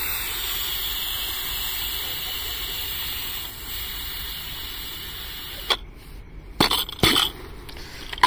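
Steam hissing out of a pressure cooker of rice as its pressure is released, a steady hiss that slowly weakens and cuts off after about six seconds. A few sharp knocks follow near the end.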